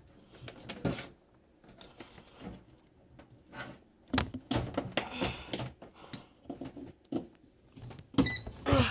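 Irregular knocks, clatter and rustling of things being handled at the air fryer. Near the end comes a short electronic beep from the PowerXL air fryer's touch control panel.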